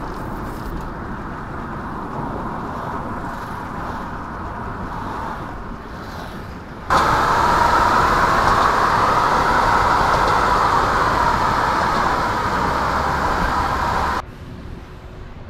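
Road noise heard inside a moving car: a steady rumble and hiss of tyres and engine. About halfway through it switches abruptly to a louder, brighter road roar, which drops back about a second before the end.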